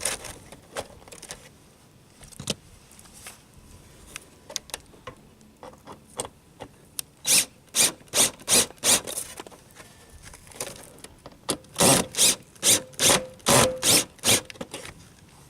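Sheet-metal valley controller being worked up under roof shingles and seated in the gutter: scattered light taps, then two runs of short scraping strokes, about two to three a second, partway through and near the end.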